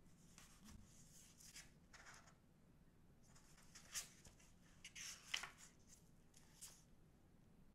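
Faint paper rustling as gloved hands open a photobook album and flip its pages, with a few sharper clicks about four and five seconds in.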